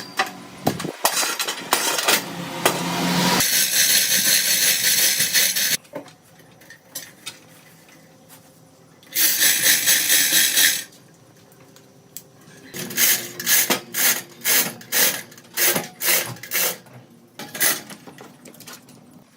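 Power tools working wood in a string of short, abruptly cut passages: a rising stretch of cutting noise, then a steadier hiss, a brief high-pitched burst, and near the end a run of short strokes about two a second.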